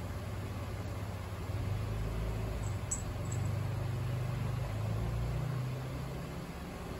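A steady low mechanical hum, like a motor running. It swells with a deeper rumble about a second and a half in and eases off after about five and a half seconds, with one faint click near the middle.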